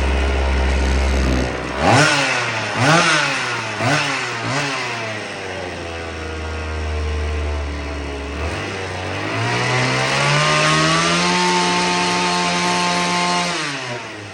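Vintage Husqvarna 50 two-stroke chainsaw engine running: idling, then the throttle is blipped four times in quick succession, it settles back, and it is revved up and held at a steady high speed for a few seconds before dropping off near the end. The saw has low compression (about 80 PSI) after long storage.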